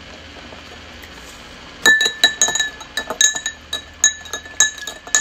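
A drinking glass being stirred with a metal stirrer, which clinks rapidly against the glass. The clinking starts about two seconds in, at roughly three strikes a second, each strike leaving the glass ringing briefly.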